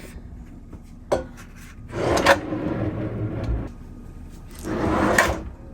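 A newly installed kitchen cabinet drawer sliding along its runners twice, each slide ending in a sharp knock as it shuts. It is a soft-close drawer that is not doing its soft close, which the installer puts down to her own installation.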